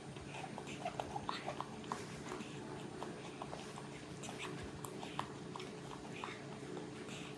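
Light, irregular clicks and taps of a metal fork in a ceramic bowl, with the soft mouth and chewing sounds of a young macaque eating cut fruit, over a low steady hum.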